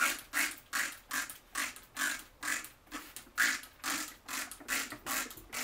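Hand-pumped plastic trigger spray bottle squeezed over and over, about two to three sprays a second, each a short hiss of water mist, wetting sand and soil.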